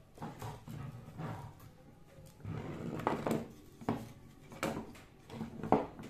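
Plywood boards and plastic corner clamps handled on a wooden workbench, making a run of irregular knocks and clatters. The loudest comes near the end.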